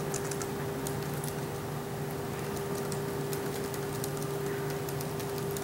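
Scattered light clicks of laptop keyboards being typed on, over a steady electrical hum.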